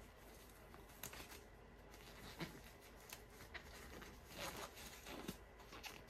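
Disposable gloves being pulled onto the hands: faint crinkling and small snaps, scattered and starting about a second in.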